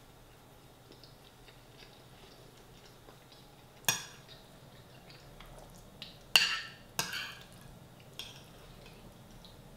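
Metal spoon clinking and scraping against a ceramic bowl while scooping up chilli and rice. There are about five sharp clinks between about four and eight seconds in, the loudest a little after six seconds.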